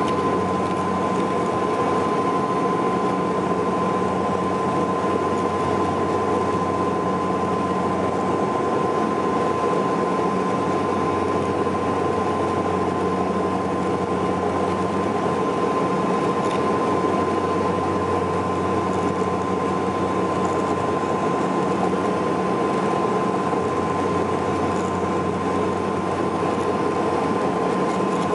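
Saab 340B turboprop airliner heard inside the passenger cabin in flight: a steady drone from its General Electric CT7 turboprop engines and propellers, with a low hum and a steady high-pitched tone that hold unchanged throughout.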